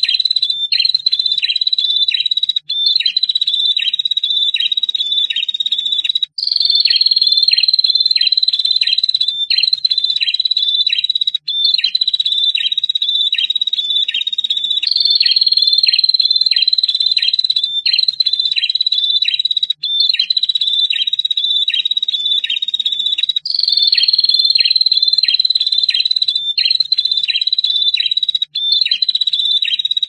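Prinia (prenjak) song: a long, high trill held on one slightly falling pitch, with a regular run of lower down-slurred notes about two or three a second. It comes in phrases a few seconds long, broken by brief gaps.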